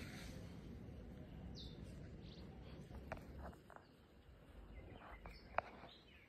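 Faint outdoor ambience: a low rumble for the first half, a few short bird chirps, and several sharp clicks, the loudest about five and a half seconds in.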